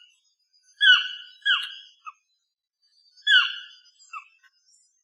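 Toucan calling: short, harsh notes that slide downward in pitch, given in quick pairs and threes, with the groups repeating about every two seconds.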